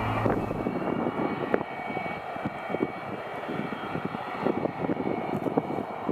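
Sukhoi Su-27 fighter's twin jet engines running at low power while the jet rolls out after landing. A rough, irregular roar with a faint steady high whine over it.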